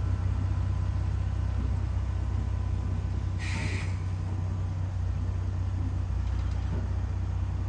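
Low, steady rumble of Brill interurban car No. 120 and a Whitcomb diesel locomotive rolling slowly together on track, with a short hiss of air about three and a half seconds in.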